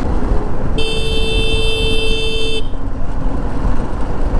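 A vehicle horn sounds once, held steady for about two seconds, starting about a second in and cutting off sharply. It sounds over the steady rush of wind and engine noise from a motorcycle being ridden.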